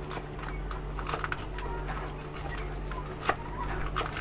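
Knife cutting vegetables on a board: a run of light knocks and clicks, the sharpest about three seconds in. A steady low hum and a few short chirps sound underneath.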